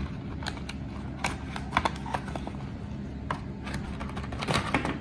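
Cardboard box and its plastic insert being handled and opened by hand: irregular crinkles, rustles and small clicks, busiest about a second in and again near the end.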